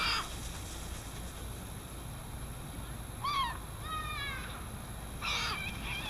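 Seagulls calling in short cries: one at the start, two a little past halfway, and the loudest near the end, over a steady low rumble.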